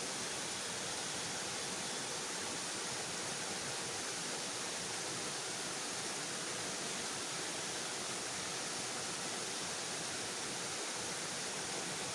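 Steady rushing of water from a river waterfall, an even unbroken noise throughout.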